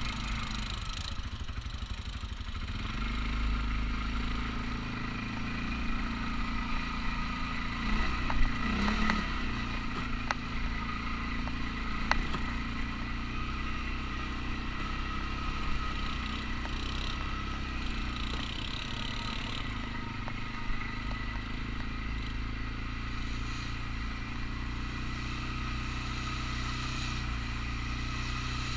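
CFMOTO ATV engine running at a steady pace over a rough, rocky trail, with a few sharp knocks and clatters from the chassis about a third of the way in.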